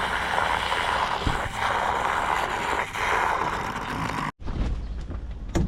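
Strong wind rushing and buffeting the microphone as a steady, dense noise, cut off abruptly about four seconds in and followed by a quieter, lower rumble of wind.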